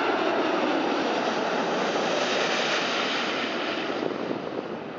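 Airbus A380's four Rolls-Royce Trent 900 turbofans on final approach passing low overhead: loud, steady jet engine noise that begins to fade about three and a half seconds in as the airliner moves away.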